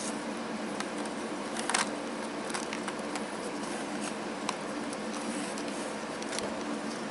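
Light clicks, taps and rustles of plastic insulator pieces being handled and fitted onto Nissan Leaf battery modules, a small cluster a little under two seconds in, over a steady low hum.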